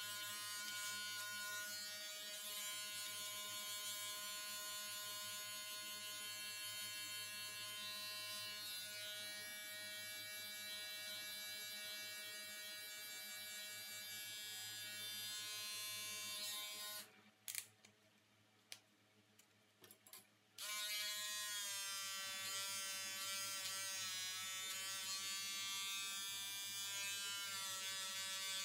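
Electric hair clipper buzzing steadily as it trims hair at the sides and bangs. About 17 seconds in it is switched off for three or four seconds, with a few faint clicks of handling, then switched back on, its pitch wavering slightly as it cuts.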